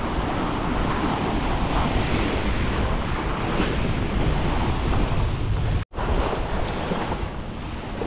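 Small waves washing and breaking along a rocky jetty, with wind buffeting the microphone. The sound cuts out abruptly for an instant about six seconds in.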